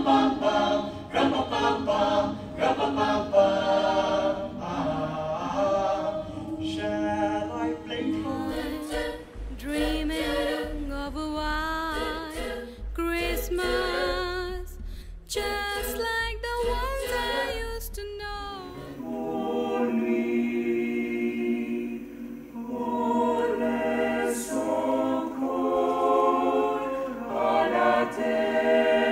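Mixed-voice choir singing in harmony without instruments, jumping abruptly from one passage to another twice. A low rumble sits under the middle passage.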